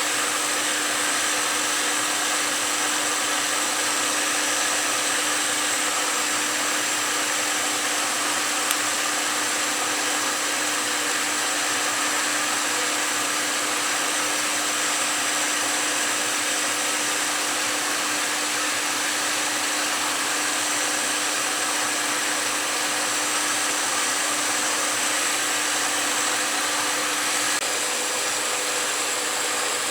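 Lathe running steadily, a constant motor hum with a few fixed steady tones, and one faint click about nine seconds in.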